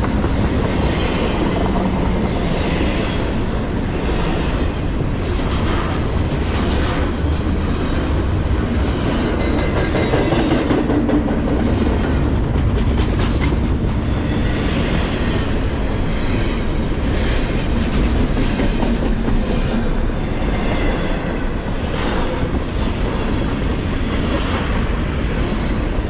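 Double-stack intermodal freight train passing at close range: steel wheels clicking over the rail joints in a steady run, over a constant loud rolling noise of the well cars on the track.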